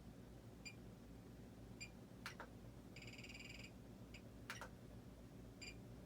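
Faint short electronic beeps from the model's radio gear, spaced a second or two apart, with one longer warbling beep about three seconds in and two pairs of sharp clicks, over near silence.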